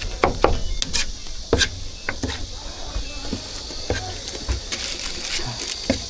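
Irregular sharp knocks and clinks of cooking utensils striking a board and metal at a roujiamo stall, about two or three a second, over a steady high hiss that grows stronger near the end.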